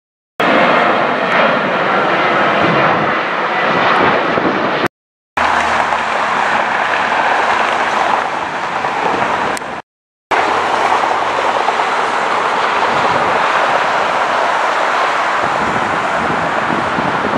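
Passenger jet engines, loud and steady, in several clips of about five seconds each, each clip cut off abruptly by a brief silence.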